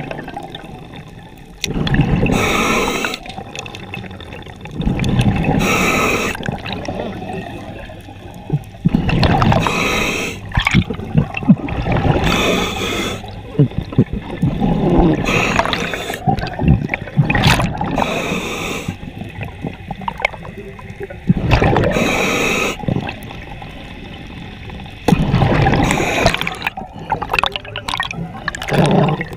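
Scuba diver breathing through a regulator underwater: a bubbly rush of exhaled air every three to four seconds, with quieter hiss between breaths. A few sharp clicks stand out in the middle and near the end.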